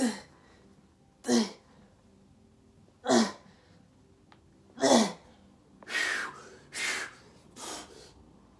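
A man's forceful grunting exhales on each rep of dumbbell Romanian deadlifts taken to failure: four loud falling-pitched grunts about one and a half to two seconds apart, then three quicker, breathy huffs in the last few seconds.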